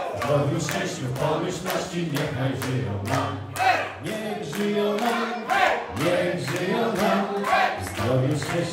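Music with several voices singing together over a steady beat.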